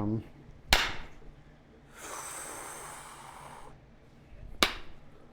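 Two sharp knapping strikes on a small heat-treated chert preform, about four seconds apart, with a soft steady hiss lasting under two seconds between them. Each strike is a single crisp click.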